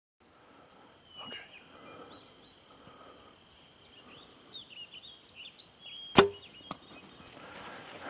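A single loud, sharp crack of a bow shot about six seconds in, over birds chirping and a steady insect drone.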